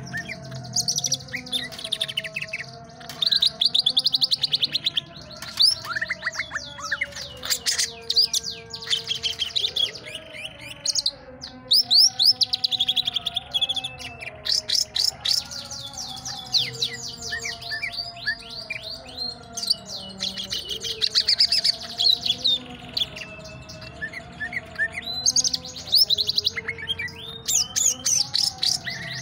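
Green leafbird (cucak ijo) singing: rapid runs of high chirps and trills in spells of a few seconds, with short pauses between them.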